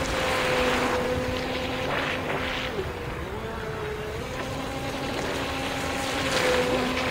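Brushless electric motor of a Turbo Vee II RC speedboat running at speed while it circles: a steady whine that drops in pitch briefly three to four seconds in, then climbs back, with swells of spray hiss off the hull.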